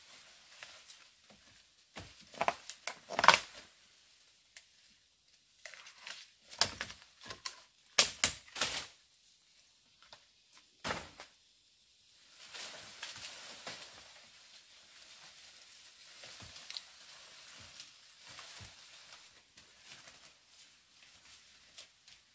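Irregular rustling and crackling with several sharp cracks or snaps, followed about halfway through by a steadier, quieter rustle.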